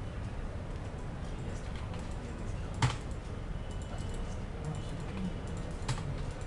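Computer keyboard keys clicking irregularly as code is typed, with one louder keystroke about three seconds in and another near the end, over a steady low background hum.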